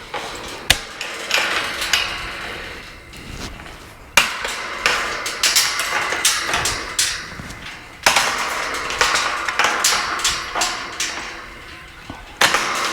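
Metal knocks, clicks and scraping of pliers working a tight nut loose on a gate hinge bolt, with a few sharper clanks about a second in, around four and eight seconds in, and near the end.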